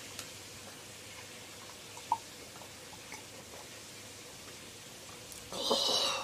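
A woman drinking draught beer from a glass: a few faint gulps, then a loud breathed-out "ahh" of satisfaction near the end.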